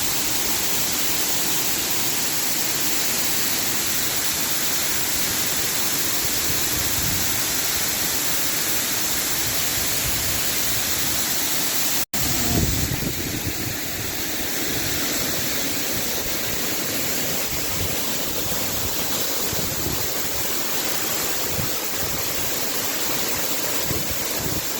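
Waterfall rushing steadily, with a brief break about halfway through where the sound cuts out for an instant.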